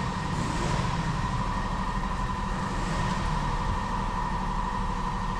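Steady mechanical hum with a low rumble and a constant high tone.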